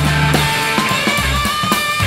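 Live rock trio from a soundboard recording: electric guitar over sustained bass notes and drum hits, a blues jam with no singing.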